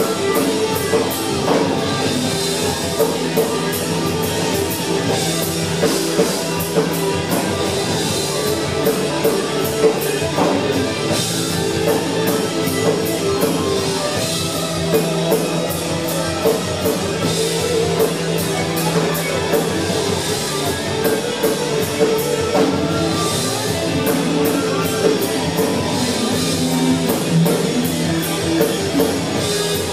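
Rock band playing live: drum kit keeping a steady beat under electric guitars and bass, in an instrumental passage.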